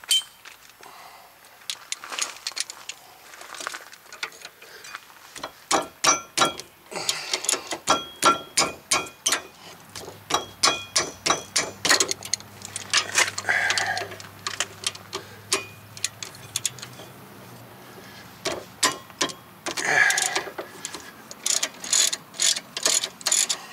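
Hand ratchet with a socket clicking in several quick runs as the 14 mm caliper bracket bolts on a rear disc brake are worked loose.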